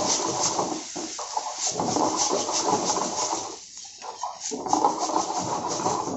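Dal sizzling as it fries in a hot wok, with a steel ladle stirring and scraping against the pan; the sizzle eases briefly a little past halfway.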